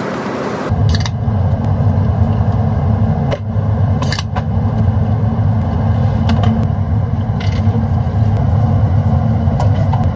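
Steady low drone of an airliner cabin in flight, with a few sharp clicks and clinks from cans and cups being handled in the galley. A hissier sound gives way to the drone less than a second in.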